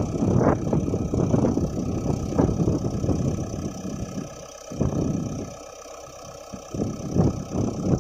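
Backhoe loader's engine running with an uneven, rattly chug, dropping away briefly twice around the middle.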